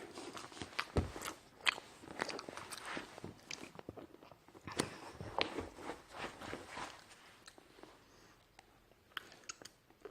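A person chewing and biting a microwave-heated Choco Pie with puffed-up marshmallow, making irregular soft mouth clicks and chewing noises.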